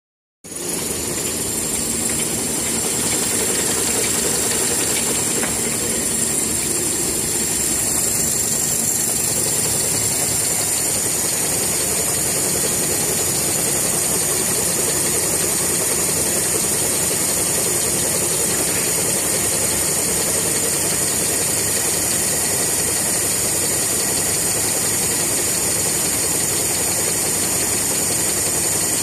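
Maxi jumbo roll toilet paper production line running: a steady, continuous machine drone with a constant high-pitched whine over it.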